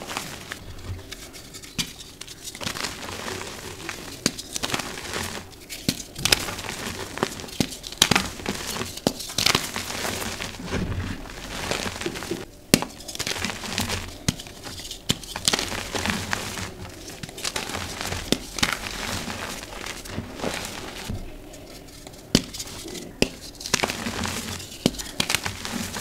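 Dyed gym chalk blocks being crumbled and broken by hand: a dense run of dry, crunchy cracks and crackles as pieces snap off and are squeezed to powder, with softer powdery rustling between them.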